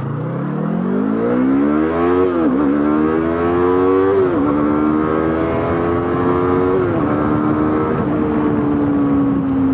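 Yamaha R3's 321 cc parallel-twin engine, running with the exhaust's silencer insert removed, accelerating hard through the gears: the pitch climbs and drops at three upshifts, then holds nearly steady near the end. It is a little louder than with the stock silencer, but not much.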